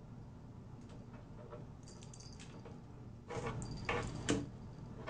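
A cat pawing at the knob of a small wall cabinet, rattling the cabinet door against its frame: a quick run of light clicks and knocks that starts a little over three seconds in, the loudest near the end.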